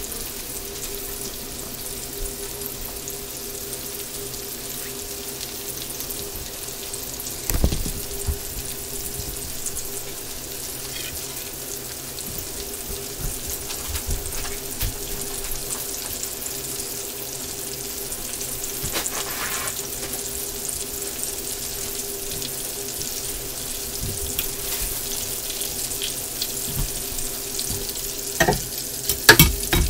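Flour-dredged squirrel legs sizzling and crackling steadily in hot frying oil, with a steady hum underneath. A few sharp knocks break in, one about seven seconds in and the loudest near the end.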